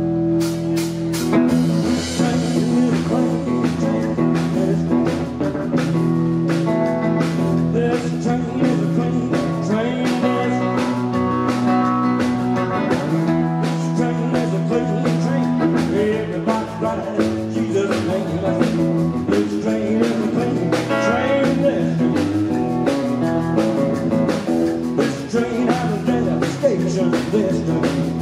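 Live rock and roll band playing with electric guitar, upright double bass and a drum kit keeping a steady beat.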